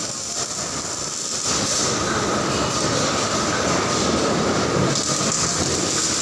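Electric welding arc crackling and sputtering as tube parts of a seat frame are welded in a jig, over steady factory machine noise with a thin constant whine. About five seconds in the sound shifts to a brighter hiss.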